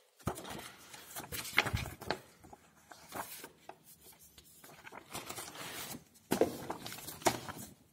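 Paper and card being handled: sheets, folders and booklets rustling and sliding against each other and against a cardboard box. The rustles are irregular, with a few louder scrapes here and there.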